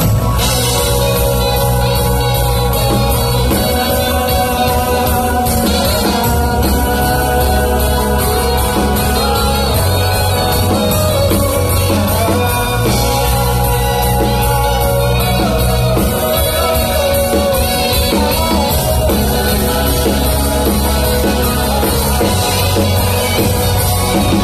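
Live city-pop band playing a song with drums, bass guitar and guitars under a lead vocal, heard from within the audience in a club.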